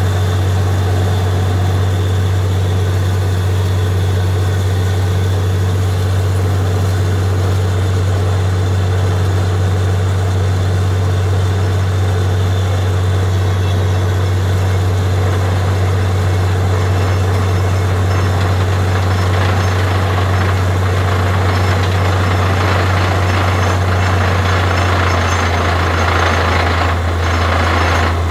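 Truck-mounted borewell drilling rig running steadily as it drills: a heavy diesel engine's low, even drone. Water and slurry are blown out of the bore head, and their hissing spray grows louder from about twenty seconds in.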